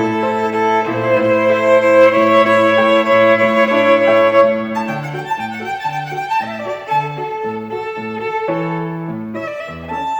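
Violin playing a classical-style melody with accompaniment: long held notes for the first few seconds, then a steady pulse of short low notes, about two a second, beneath the melody.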